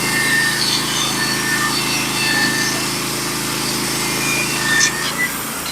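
Bandsaw mill running under load, its engine steady while the stellite-tipped band blade cuts through a pine cant; the engine's low note falls away shortly before the end. The sound is thinned by noise-cancelling microphones.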